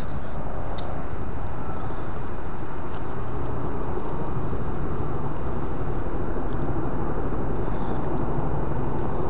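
Steady outdoor background rumble and hiss with no distinct events.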